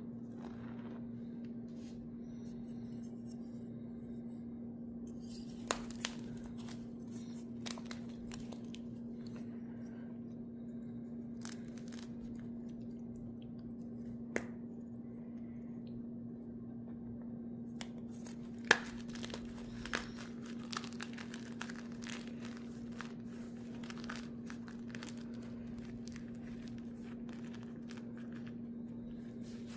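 Gym chalk being crushed, crumbling and crackling: a few scattered crunches at first, then dense crackling through the second half, with one loud snap just past the middle. A steady low hum runs underneath.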